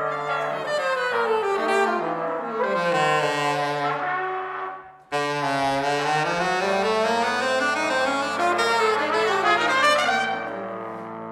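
A jazz horn section of trumpet, alto saxophone and trombone plays pitches that slide down and up and cross each other over held low notes. The sound drops away about four and a half seconds in and comes back suddenly, then fades near the end.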